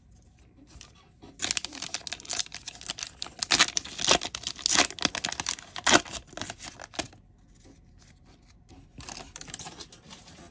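A foil trading-card booster pack being torn open and crinkled: a dense run of sharp crackling tears starts about a second and a half in and dies away after about seven seconds, followed by faint rustling near the end.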